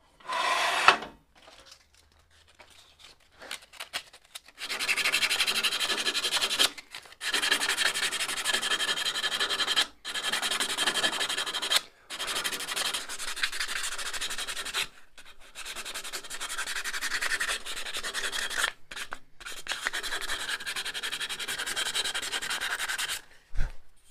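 Sandpaper rubbing on a turned ash workpiece. There is a short pass at the start, then about six long sanding strokes of two to four seconds each, with brief pauses between them.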